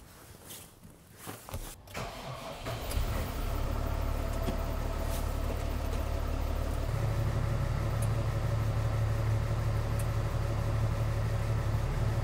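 Tractor diesel engine cranking and starting two to three seconds in, after a few knocks, then running steadily. About halfway through its low note grows stronger as it is put in gear to turn a jacked-up rear wheel.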